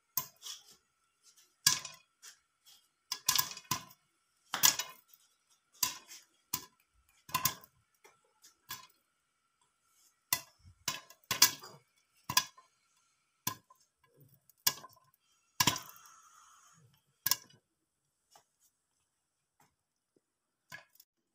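Popcorn kernels popping in a pan under a glass lid: sharp, irregular pops, one or two a second, thinning out over the last few seconds.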